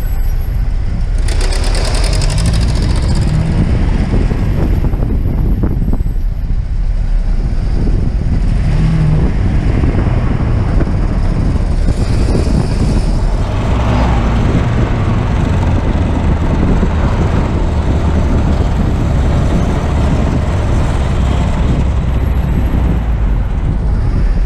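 Alfa Romeo Spider driving down a mountain pass: the engine note shifts every few seconds with the bends, under steady wind and road noise.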